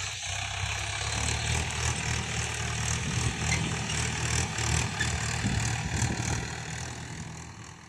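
Swaraj 843 XM tractor's three-cylinder diesel engine running steadily as it pulls a harrow through dry soil, fading out near the end.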